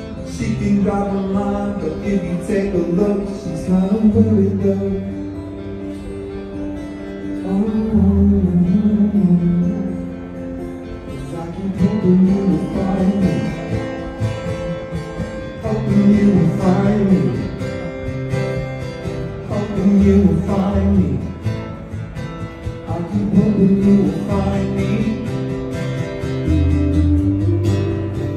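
Acoustic guitar strummed and picked in a slow live solo song, with a man singing along in phrases.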